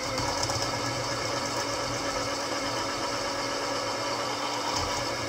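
Frankford Arsenal electric case trimmer running with a steady hum while its cutter trims a .223 brass case held in the trim die.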